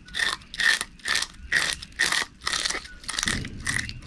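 A knife blade scraping the hard scales off a menpachi (soldierfish), in quick, even strokes about two a second.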